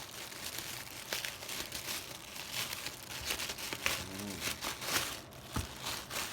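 Parcel packaging being handled and opened by hand: irregular crinkling and rustling with a few sharper crackles.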